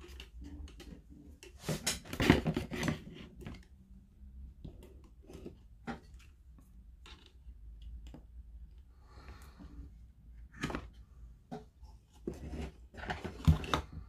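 Scattered clicks, taps and knocks of hands handling wires, a screwdriver and the plastic and metal lamp housing on a workbench, with a brief rustle about nine seconds in and louder knocks near the end.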